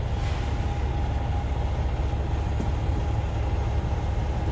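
Semi truck's diesel engine idling, heard inside the cab as a steady low rumble.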